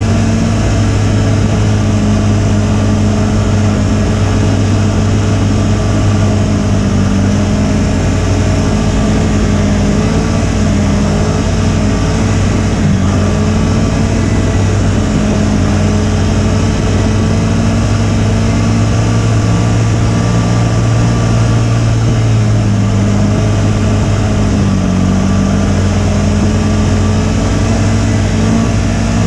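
Snowmobile engine running steadily, its pitch dipping slightly a couple of times.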